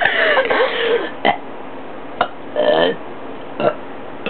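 A person burping, trying to burp out letters of the alphabet: a long burp with a wavering pitch at the start, then a few short sharp sounds and a second, shorter burp a little before the three-second mark.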